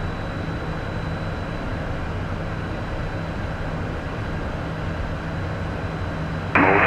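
Steady cockpit drone of a Beechcraft Premier I twin-jet in flight: engine and airflow noise with a low hum. Just before the end a radio transmission cuts in abruptly and loudly.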